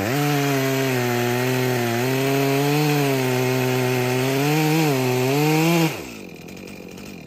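Stihl MS391 two-stroke chainsaw running at high revs while cutting a log, holding its revs in the cut with only brief dips in pitch, now that its carbon-clogged spark arrestor screen, the cause of its bogging down, has been cleaned. About six seconds in, the engine note drops away sharply and winds down.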